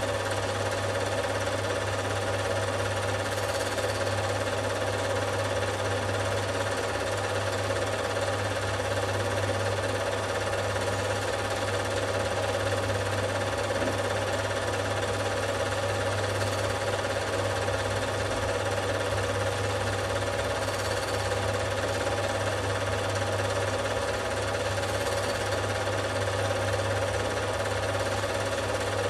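Home-movie film projector running: a steady mechanical whir with a low hum and a rapid, even chatter from the film mechanism.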